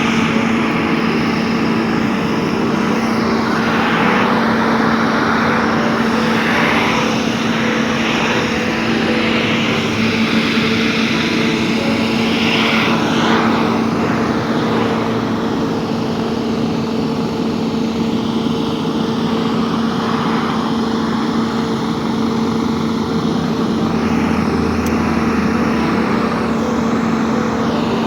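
An engine running steadily with a constant droning hum, over a shifting wash of noise.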